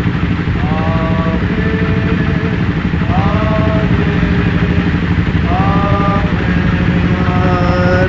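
Motorcycle engines idling steadily as a low, even rumble. A man's voice, intoning a blessing in four short phrases, is heard over it.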